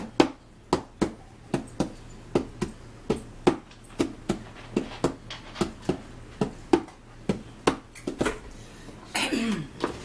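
Hands tapping a rhythm on a small box on a wooden table, about two to three taps a second, stopping a little before the end. Near the end comes a short vocal sound that falls in pitch.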